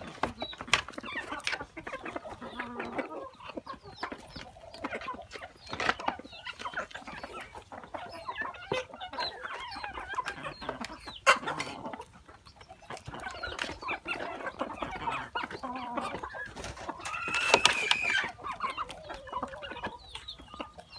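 Hens and roosters clucking continuously while they feed, with occasional sharp taps of beaks pecking at coconut halves. One louder, higher-pitched call comes near the end.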